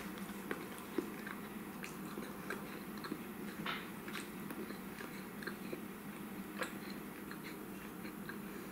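A person chewing a piece of chocolate close to the microphone: scattered small clicks and crackles from the mouth, over a steady low background hum.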